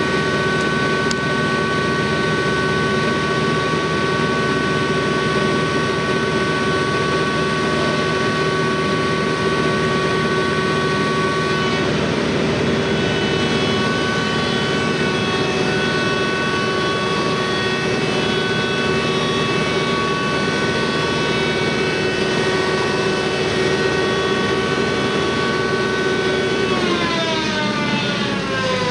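Caterpillar TH355 telehandler's diesel engine running steadily with a whine. About 27 seconds in the pitch drops, then starts to rise again as the engine speed changes.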